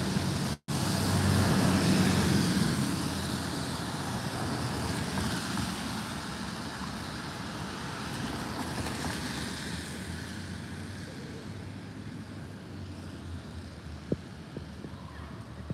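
City road traffic on a wet street: cars' tyres hiss past, loudest about one to three seconds in, then fading to a quieter, steady road noise. The sound cuts out for an instant under a second in, and there is a single sharp click near the end.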